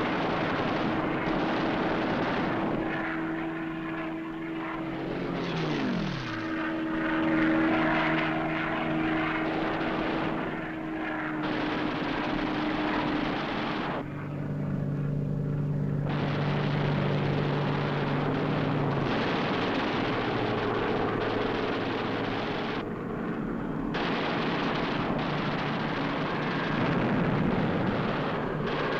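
Piston-engined propeller fighter aircraft droning steadily, with the engine pitch dropping sharply about five to six seconds in as a plane passes; the engine note shifts abruptly a couple of times later on.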